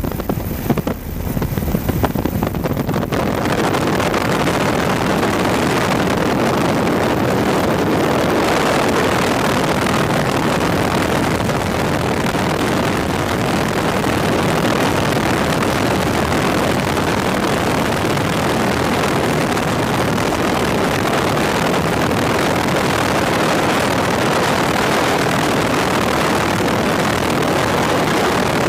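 Loud, steady rushing noise of a helicopter in flight, engine and rotor noise mixed with wind. It is uneven for the first couple of seconds, then holds even.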